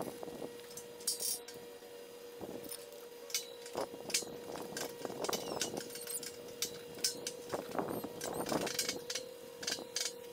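Stick (arc) welding on a steel stair frame: the electrode arc crackling in short spells, with sharp metallic taps and clinks between them. A steady faint hum runs underneath.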